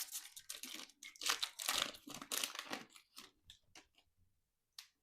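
Foil Pokémon booster pack wrapper crinkling and crackling as it is torn open, dense for about three seconds and then tapering off, with one short tick near the end.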